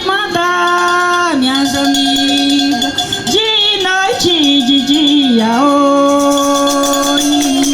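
A singer's voice in a wordless aboio, the sertão cowherd's call, with musical accompaniment. It comes in two long phrases, each a held note that slides down to a lower held note.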